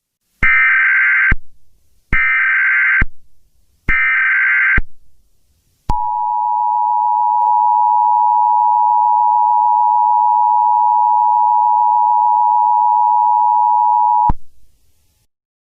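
Emergency Alert System tones: three short bursts of SAME digital header, each a shrill warbling screech under a second long with brief gaps between, followed by the two-tone attention signal (853 and 960 Hz together), a steady harsh dual tone held about eight seconds and cut off abruptly. Together they announce an emergency alert broadcast.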